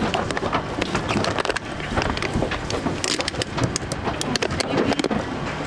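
Dense, irregular crackling and clicking of a thin plastic water bottle crinkling as it is held to a pig's mouth and the pig drinks and mouths at it, thickest about three to five seconds in.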